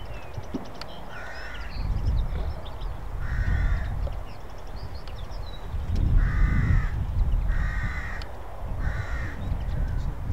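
Crow cawing: five short harsh calls spaced one to three seconds apart, over a low rumble that swells and fades.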